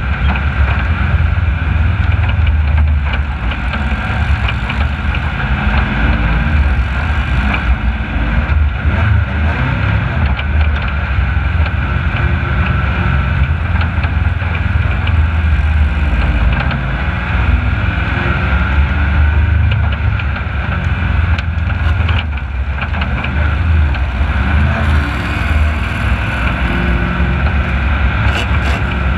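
Racing vehicle's engine running steadily and close, with a heavy low rumble and no clear revving up or down.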